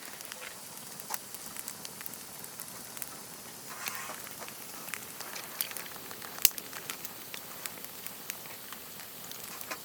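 Wood fire crackling and popping over a steady hiss, with one sharp, louder pop about six and a half seconds in.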